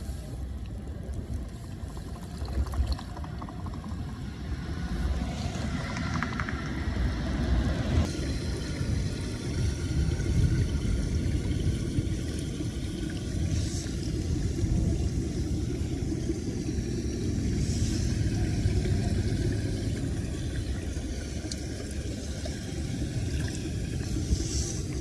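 Floodwater draining into a curbside storm drain grate as gloved hands clear debris from it: a steady low rush of water, with a few short splashes.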